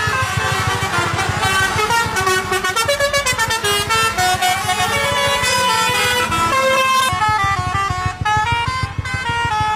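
Lorry 'telolet' musical air horns playing a tune, stepping from one short held note to the next, over a low rapid pulsing from an engine.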